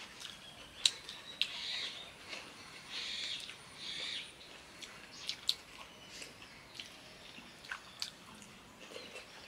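Eating by hand: chewing and lip-smacking, with fingers mixing biryani rice on a banana leaf. There are soft wet swells and a few sharp clicks, the loudest about a second in and again after about five seconds.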